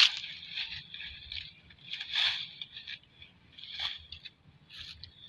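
Several short rustles and crunches of dry grass and fallen leaves, the loudest about two seconds in.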